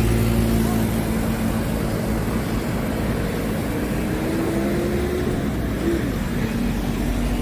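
Road traffic passing close by: a steady noise of engines and tyres, with one vehicle's engine tone rising slowly through the middle.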